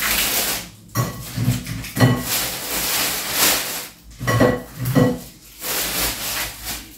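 Thin plastic carrier bag rustling and crinkling in several bursts as dried fish are taken out of it, with light knocks of handling.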